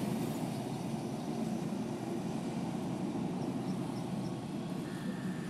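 Steady low background noise with no clear pitch, like room or distant traffic noise picked up by a microphone; a few faint high ticks about three and a half seconds in.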